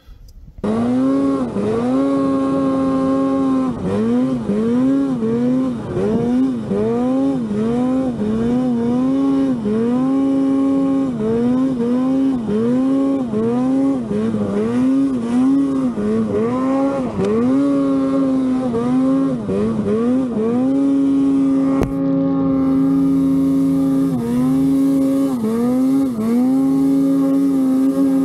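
Arctic Cat Alpha One mountain snowmobile's two-stroke engine running hard through deep powder. The engine pitch repeatedly drops and climbs again, roughly once a second, as the throttle is eased and reapplied, then holds steadier near the end.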